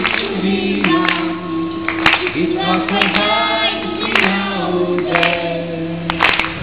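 Children singing a song with chamber orchestra and band accompaniment, the voices holding long notes over a sharp beat that falls about once a second.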